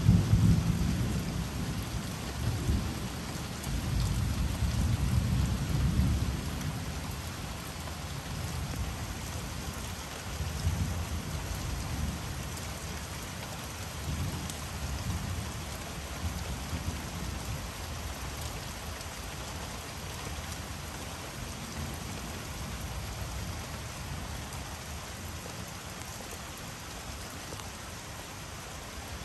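Thunder rumbling, heaviest in the first six seconds or so and then dying away in weaker swells, over the steady hiss of falling rain.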